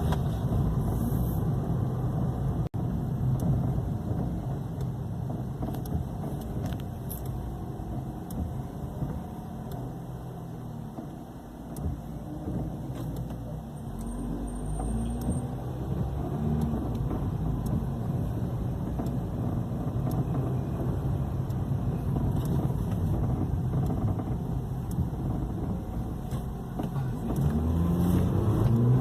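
Ford New Fiesta driving: engine and road noise, the engine's pitch drifting up and down as the car speeds up and slows, easing off briefly about halfway through.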